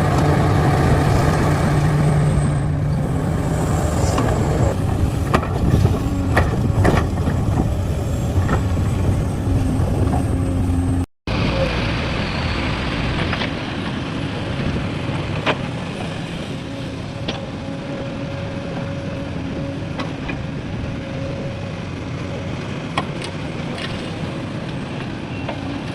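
Heavy diesel machinery engines running steadily. About eleven seconds in the sound cuts out for an instant and comes back a little quieter, with scattered clicks and knocks.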